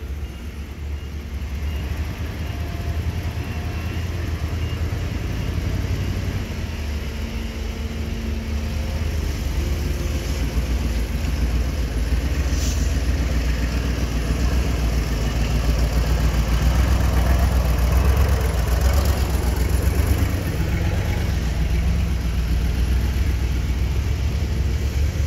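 Diesel engines of heavy dump trucks running as they drive over rough ground, a deep steady rumble that grows louder through the first two-thirds and eases a little near the end.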